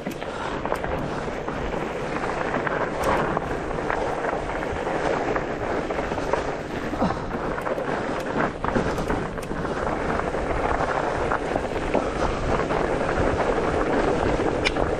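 Mountain bike riding fast over a dirt forest singletrack: steady wind noise on the microphone and knobby tyres rolling over dirt, with frequent short knocks and rattles as the bike goes over bumps.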